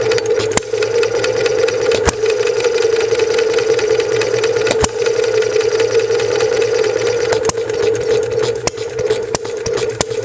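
Model hit-and-miss engine running on a vapor carburetor, firing in sharp, irregular pops over a steady hum. It fires only a few times in the first five seconds, then much more often from about seven seconds in, while its threaded air-mixture collar is being turned.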